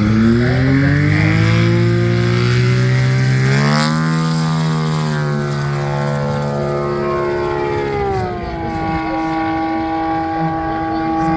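Propeller airplane's piston engine at full takeoff power, rated 300+ HP, in a very short takeoff: the engine note climbs as it spools up and steps higher about four seconds in. Its pitch drops near eight seconds as the plane climbs away, then holds steady.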